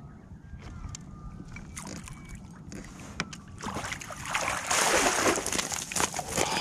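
A hooked flathead being landed at a kayak: a few scattered knocks and clicks, then from about four seconds in a loud burst of thrashing and splashing water with sharp slaps that keeps on.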